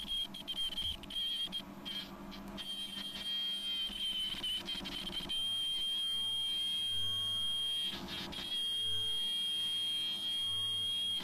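Ultrasonic sewing machine running with a steady high-pitched whine as it seals a strip of non-woven fabric fed between its rotary wheels. A few handling clicks come in the first seconds, and from about five seconds in the sound steadies and a low hum joins the whine.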